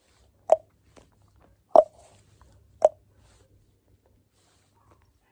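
Three short, hollow plopping clucks, about a second apart, each at much the same pitch.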